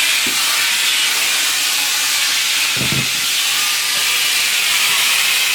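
Steady, loud hiss with no pitch or rhythm, and a soft low thump about three seconds in.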